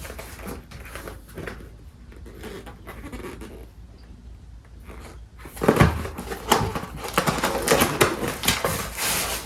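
Packaging being handled and opened: a few quiet clicks and taps, then from about six seconds in a loud, continuous crinkling and rustling.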